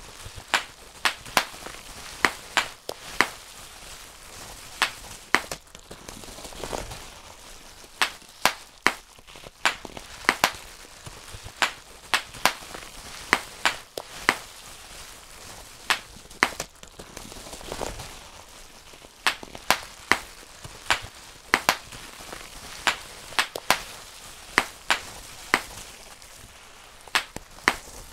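Bubble wrap being popped by hand, bubble by bubble: sharp single pops at an irregular pace of roughly one or two a second, with soft rustling of the plastic sheet between them.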